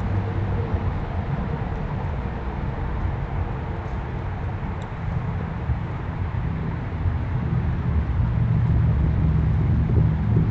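A low, steady mechanical rumble, like an engine running nearby, growing a little louder about eight seconds in.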